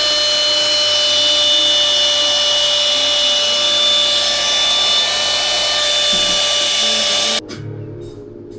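High-speed hair dryer, a cheap Dyson-style dupe, running on one setting: a steady rush of air with a high motor whine. It switches off suddenly near the end.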